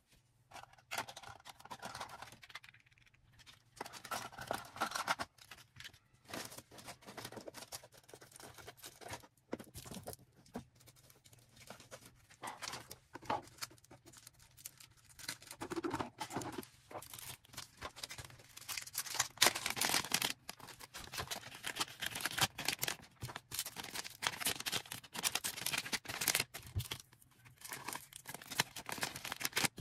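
Hands packing an order: plastic packaging rustling and tearing, with cutting and small handling clicks, coming and going with short pauses and busier in the second half.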